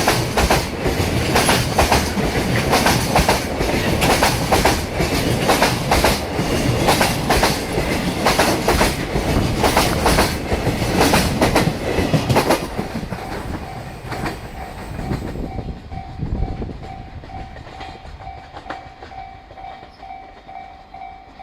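Freight train's container wagons running over rail joints: a rapid, loud run of wheel clacks that fades out after about 13 seconds. The fade leaves a level-crossing warning bell ringing in a steady repeated tone.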